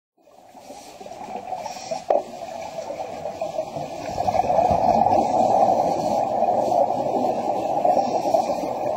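Steady, muffled underwater noise heard through an underwater camera, with one sharp click about two seconds in.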